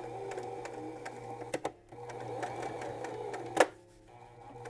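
Spiegel electric sewing machine straight-stitching: a steady motor hum with quick, even ticking of the needle strokes. It stops briefly twice, with a sharp click just before the second stop, as darning rows are sewn back and forth.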